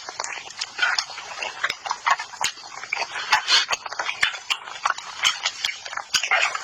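Close-up mouth sounds of someone eating spicy chicken: a quick, irregular run of wet chewing clicks, lip smacks and short crunchy bursts.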